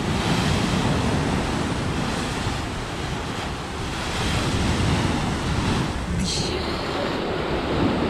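Heavy sea surf breaking in white foam against a concrete pier and stepped seawall, a steady rushing that swells and eases as each wave comes in.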